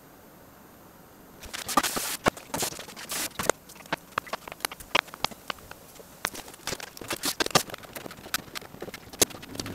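Fast, irregular clicking and clattering of kitchen work (a knife tapping a cutting board, steel bowls and utensils knocking), sped up with the timelapse. The clatter starts about a second and a half in.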